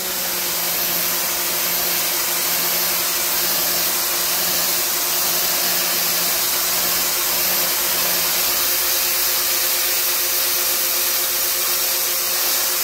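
Rock&Rocker 1500 W electric pressure washer running with the 25-degree nozzle, blasting a steady high-pressure water jet onto concrete: a loud, even hiss of spray over a steady pump-motor hum.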